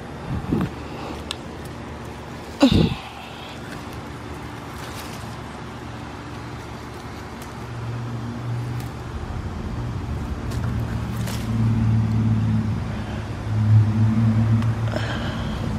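A motor engine running, its low, steady hum growing louder from about halfway through, with two brief knocks in the first three seconds.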